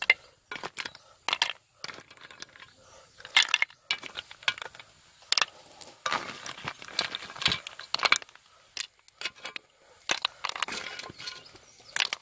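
Snail shells clinking and clattering against one another and against an earthenware pot and plate as they are spooned out of foamy water: a run of irregular sharp clicks, thickest in the middle and again near the end.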